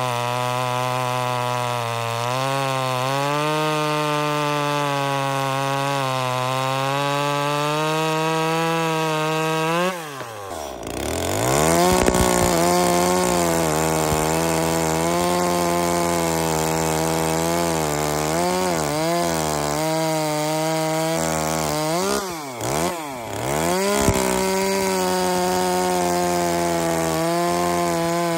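Small two-stroke top-handle chainsaws cutting through a log at full throttle: first a Neotec, then, after a break about ten seconds in, an Echo revving up into the cut. Its engine note dips briefly twice near the two-thirds mark, then picks up again.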